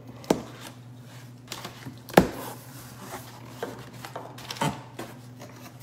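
Cardboard shipping box being opened: a knife slitting the packing tape and the flaps being pulled open, with a scattering of sharp cardboard clicks and knocks, the loudest about two seconds in.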